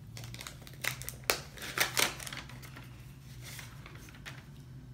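Gift wrapping paper being torn and crumpled off a small box by hand: a few sharp rips and crinkles in the first half, then softer rustling, over a steady low hum.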